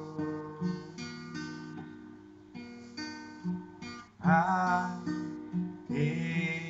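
Acoustic guitar playing chords, plucked and strummed, with a voice-like sound coming in briefly about four seconds in and again near the end.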